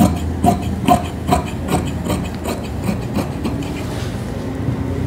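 Large tailor's shears cutting through cloth on a table: a steady run of snips, about two a second, that fades out over the last second or so.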